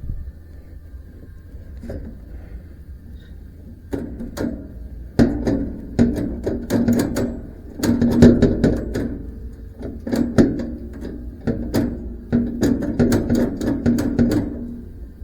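Rapid metallic clicking and clanking from hand work on a band sawmill during a blade change. The strokes come in quick runs from about four seconds in until near the end.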